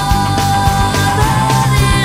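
Background music: a song with a drum beat and one long held note through most of it.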